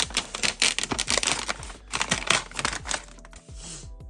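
Packaging wrap crinkling and rustling as a parcel is unwrapped by hand: a dense run of crackles and small clicks for about three seconds, then quieter.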